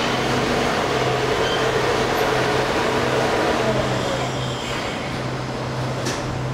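Alstom Metropolis AM5-M2 metro train moving slowly alongside the platform, with a steady hum from its electric drive and a low tone that cuts in and out. The sound eases off a little after about four seconds.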